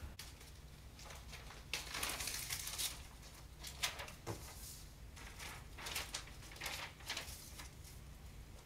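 Faint rustling and a few light knocks of cardboard boxes and paper being handled, over a low steady hum.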